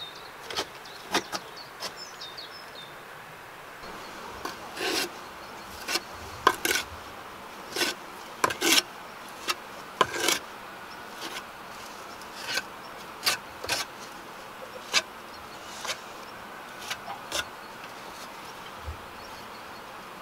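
Steel trowel scraping and tapping mortar onto the bricks of a brick stove: irregular short scrapes and knocks, a few longer scrapes among them.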